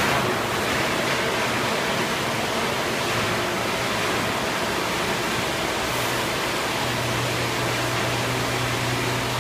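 Large injection molding machine for HDPE pipe fittings running: a steady hiss-like machine noise, with a low hum that comes up more strongly about seven seconds in.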